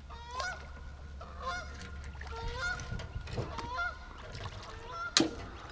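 Geese honking repeatedly, many short calls overlapping. A sharp knock sounds near the end.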